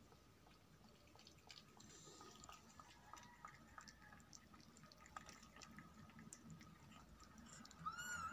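A kitten lapping milk from a metal spoon: faint, quick wet clicks and ticks of its tongue. A short high squeaky call near the end.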